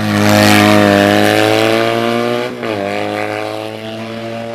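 Race-prepared Fiat 500 hillclimb car accelerating hard past at close range, its engine note loud and climbing in pitch. About two and a half seconds in the revs drop sharply at an upshift, then the engine pulls again as the car moves away, growing fainter.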